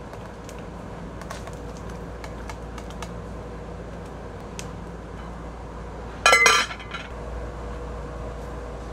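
Cookware clanks once at an aluminium pot on a charcoal grill about six seconds in, a short ringing metal sound. Around it is a low steady background with faint light ticks.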